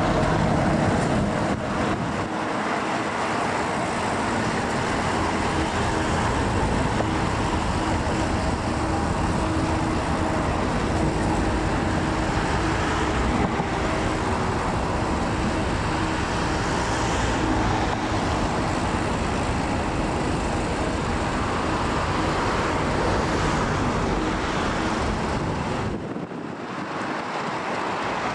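A pair of Class 50 diesel locomotives coupled together, their English Electric 16-cylinder engines running steadily as the locomotives move slowly past, a continuous engine drone with a steady hum in it. The level dips briefly near the end.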